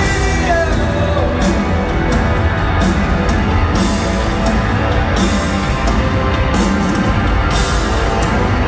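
Live rock band playing loudly: electric guitars, bass, keyboards and drums, heard from within the crowd.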